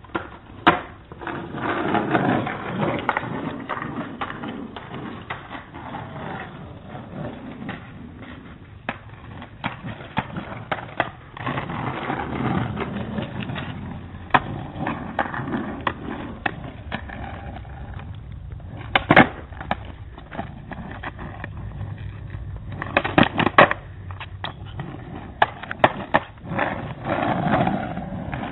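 Small hard wheels rolling over pavement, with many sharp clacks and heavier slams of landings; the loudest slams come about two-thirds of the way through and in a cluster near the end.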